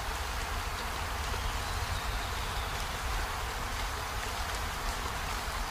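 Steady hiss with a low rumble underneath, unchanging throughout.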